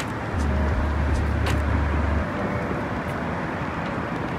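Downtown street traffic noise, with the low rumble of a heavy vehicle's engine for about two seconds, starting about half a second in.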